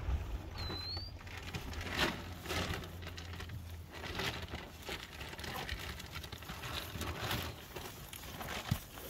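Cattle grazing close by: irregular rasping rips of grass being torn off, one or two a second. A single short bird chirp sounds just under a second in.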